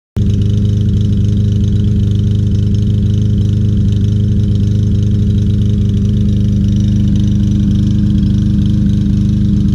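Briggs & Stratton 150cc single-cylinder lawn mower engine running steadily with an engine miss, despite a cleaned carburetor and a new flywheel key.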